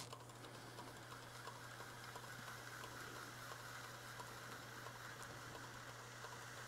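Faint, steady wet-sanding on a wood lathe: a water-soaked Micro-Mesh pad rubbing a spinning CA-finished platter, a soft fine hiss over a low, constant hum of the lathe running.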